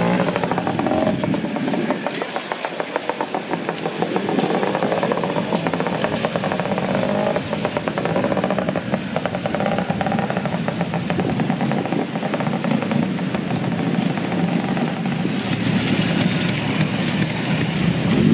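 Classic trials motorcycle engine with the throttle blipped up and down, its pitch rising and falling, while the bike climbs through a rocky stream, over the rush of water.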